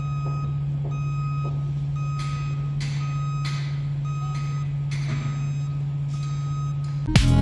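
Vehicle reversing alarm beeping at a steady pitch, about one beep a second, over a steady low hum. Loud electronic music cuts in abruptly near the end.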